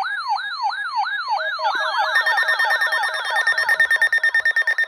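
Wireless emergency alert tones from phones: a siren-like sweep that jumps up and glides down about two and a half times a second. About a second and a half in, a second, faster sweep joins it, and then a rapid pulsed beeping starts over both.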